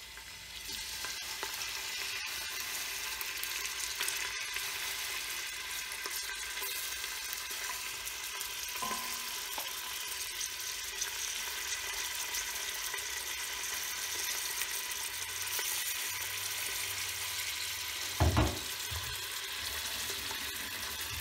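Pieces of bone-in meat sizzling and frying in hot oil in a stainless steel pressure cooker pot, a steady hiss, with a brief thump near the end.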